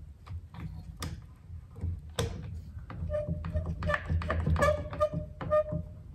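One-handed trigger bar clamp being squeezed tight onto a glued chair leg: a run of clicks, joined about halfway through by short repeated squeaks.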